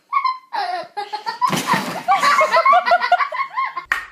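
Human laughter, loud and in a quick run of short repeated bursts about two seconds in.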